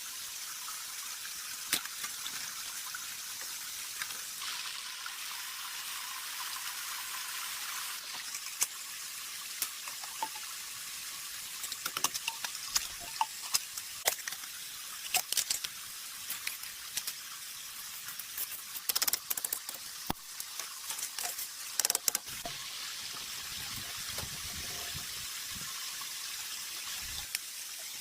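Steady hiss of falling water, with many short, sharp ticks and drips scattered through it, busiest in the middle stretch.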